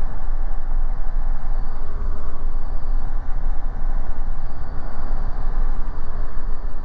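Diamond DA40's piston engine and propeller running at low taxi power, heard inside the cockpit as a steady drone.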